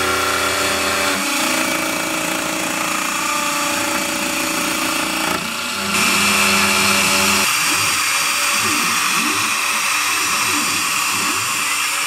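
CNC router spindle whining as its end mill carves a relief into wood, with the machine's drive tones changing pitch several times and rising and falling repeatedly in the second half as the head moves back and forth.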